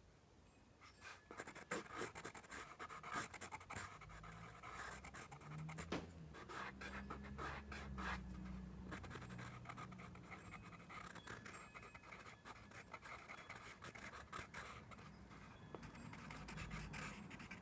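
Coloured pencil scratching across drawing paper in many short strokes, starting about a second in and going on with brief pauses. A faint low drone runs underneath through the middle.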